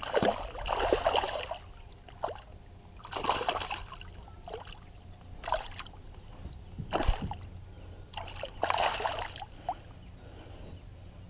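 Water splashing in several short bursts, with a single low thump about seven seconds in.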